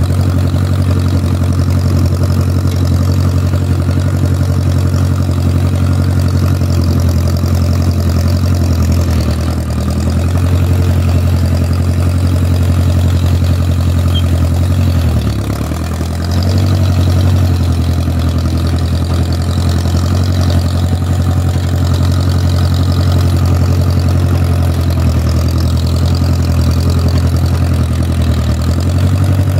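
A 1969 Case Construction King tractor-loader's engine running steadily as it plows snow, heard from the operator's seat. About halfway through it slows for a moment, its pitch dropping, then picks back up.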